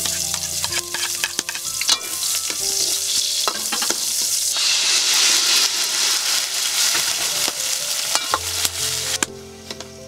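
Canned sardines in tomato sauce, with sautéed onion and garlic, sizzling loudly in a hot wok, while a ladle scrapes and clicks against the pan as it stirs. The sizzling dies down about nine seconds in.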